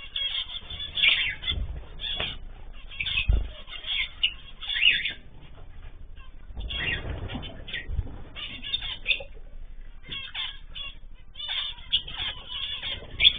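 A mixed aviary of cockatiels, zebra finches and canaries, chirping and calling over one another in dense short bursts, with a few low thumps underneath.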